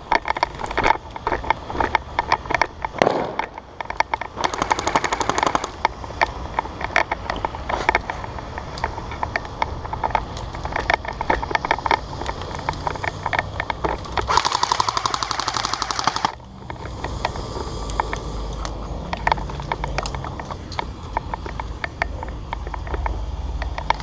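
Airsoft guns firing: scattered single shots and short bursts throughout, with a rapid burst about four seconds in and a longer burst of about two seconds near the middle.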